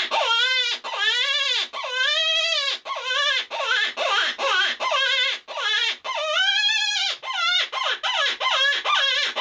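Predator hand call blown as a rabbit distress series: a fast run of wailing notes that rise and fall in pitch, some long and some short, with a shaky quiver put into them from the diaphragm.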